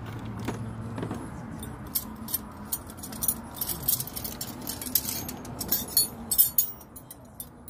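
Light, irregular metallic clicks and clinks of a wrench and small fittings as a small threaded piece is worked into a new ball joint. The clicks come thickest about five to six and a half seconds in.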